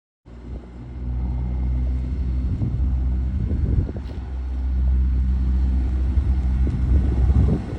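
Honda S2000 engine idling steadily, with a low rumble.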